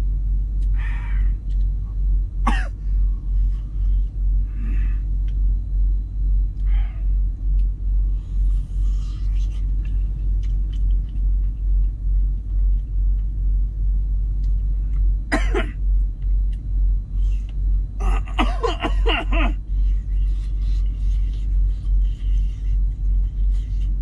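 Steady low rumble of the semi truck's idling engine, heard inside the cab, pulsing about twice a second. A few short clicks and, near the end, a brief cough rise above it.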